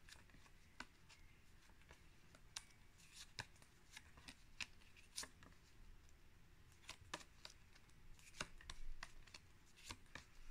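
Faint, irregular clicks and rustles of card flash cards being flipped and swapped one after another from a hand-held stack, with a short pause partway through.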